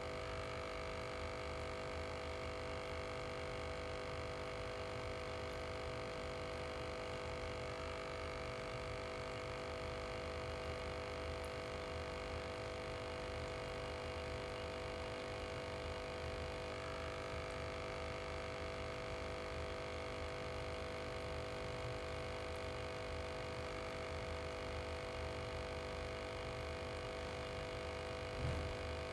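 Small aquarium air pump humming steadily, a mix of several held tones over a low rumble. A brief low thump near the end.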